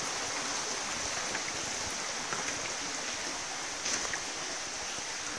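Steady rushing of flowing water, with a constant high-pitched drone above it and a few faint ticks.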